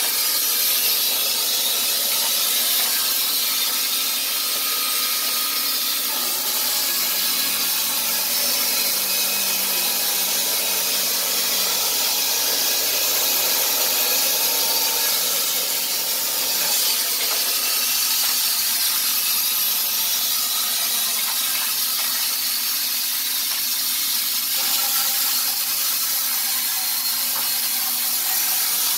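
Wood-Mizer LT15 band sawmill cutting along a squared timber cant: a steady, unbroken hiss of the band blade through the wood, with the mill's motor humming beneath it.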